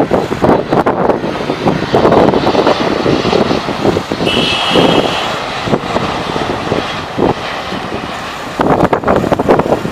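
Jet engines of a Qatar Cargo freighter coming in to land: an uneven, surging rushing noise, with a brief high whine about four and a half seconds in.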